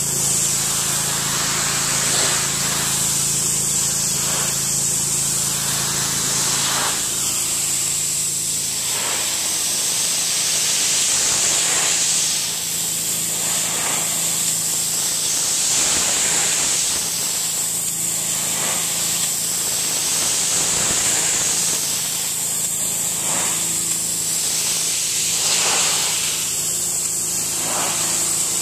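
Pressure washer running: the high-pressure water spray hisses against wooden deck boards over the steady hum of the machine's engine. The hiss rises and falls every few seconds.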